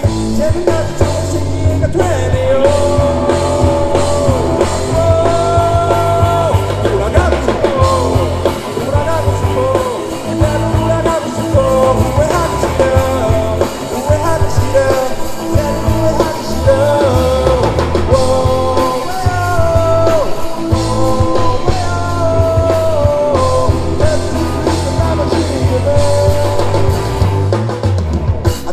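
Live rock band playing: electric guitars, bass and drum kit, with a male lead vocal singing a melody over them.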